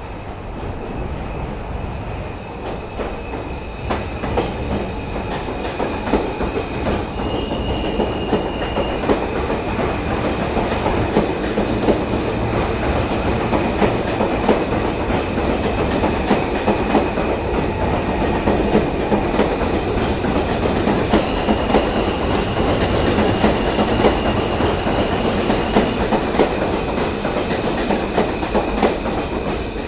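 New York City Subway train approaching and running past close by: a steady rumble of wheels on rail that grows louder, with rapid clicks over the rail joints. A thin high whine runs through it and sharpens briefly about seven seconds in and again for several seconds past twenty.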